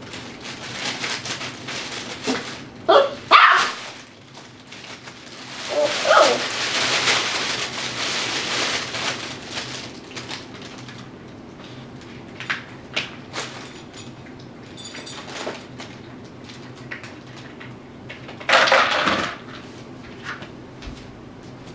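Tibetan Terrier puppy giving a few short barks while crinkling and rustling plastic sheeting as it moves around under it.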